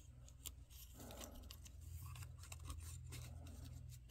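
Faint scattered clicks and rustles of small plastic action-figure parts and elastic being handled, over a low steady hum.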